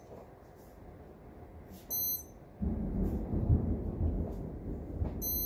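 Lightning detector beeping: a short, high electronic beep about two seconds in and another at the very end, its signal for a lightning strike within 15 miles. Just after the first beep, a low rumble of thunder sets in suddenly and carries on.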